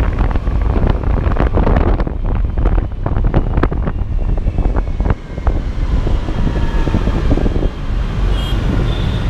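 Heavy wind buffeting on the microphone of a moving motor scooter, over a steady low road and engine rumble.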